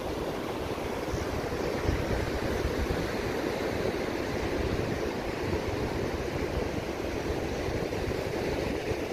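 Steady rushing of ocean surf on a sandy beach, mixed with wind buffeting the microphone.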